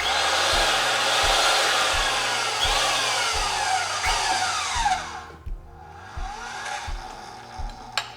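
Power pipe-threading machine running for about five seconds, spinning a black iron pipe while a fitting is tightened onto its fresh threads, then cutting off. Scraping, squealing sweeps of metal run through the machine noise.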